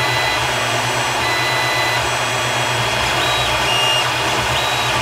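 Ender 3 Pro 3D printer running a print: its stepper motors whine in tones that start, stop and change pitch as the print head moves, over the steady hum of its fans.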